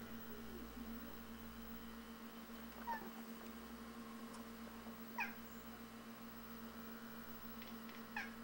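Domestic cat chattering at a bird it sees through a window: three short, high chirps a few seconds apart.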